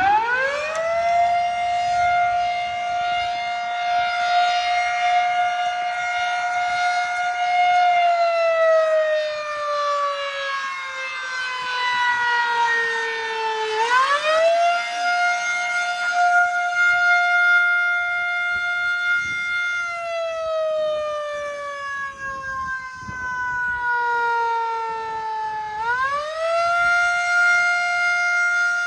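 Federal Signal Model 3 electromechanical fire siren sounding a test. It winds up to full pitch within about a second and holds a steady tone for several seconds. It then slowly sinks in pitch over about six seconds before winding back up, a cycle that repeats, rising again about halfway through and near the end.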